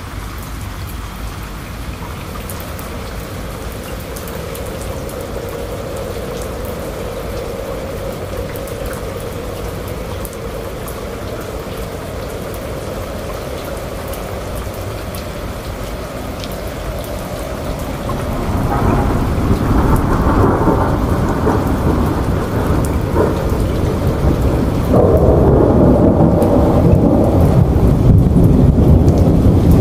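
Heavy rain pouring steadily, with a deep rumble underneath that grows louder about two-thirds of the way in and again near the end.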